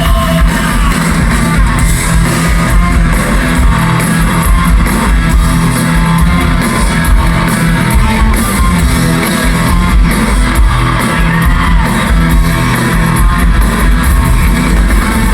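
Rock band playing a song live, loud and dense, with guitar prominent.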